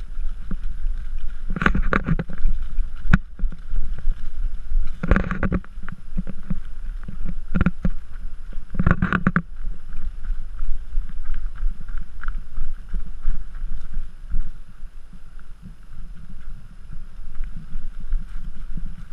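Low wind and handling noise on a moving camera carried at a walk, with footfalls in grass and four short, louder bursts about two, five, seven and a half and nine seconds in.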